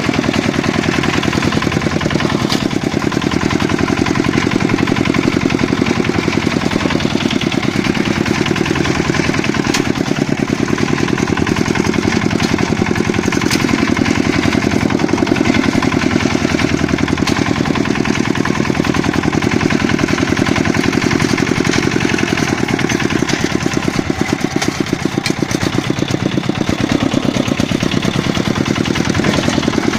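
Walk-behind tractor (motoblock) engine running steadily, a fast, even putter throughout.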